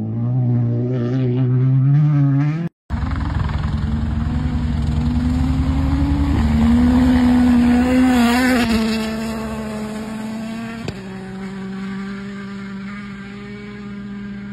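Rally car engines at full throttle: the note rises and wavers through gear changes. About three seconds in, another rally car approaches and passes at speed, its note rising and then falling. After that comes a steady drone, which fits the helicopter flying low over the stage.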